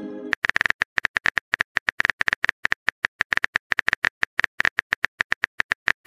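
Rapid phone-keyboard typing sound effect: a quick, uneven run of short taps, about ten a second, as a chat message is typed out.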